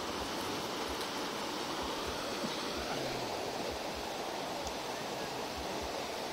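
Steady rushing of a nearby river flowing, with soft low bumps now and then.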